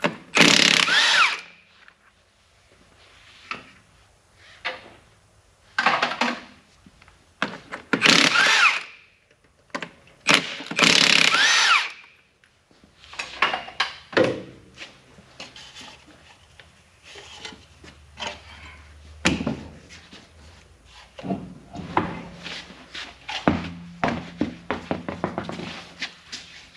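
Impact wrench spinning lug nuts off a truck's wheel hub in four short bursts, the motor's pitch bending within each. Between and after the bursts come many light metal clinks and knocks.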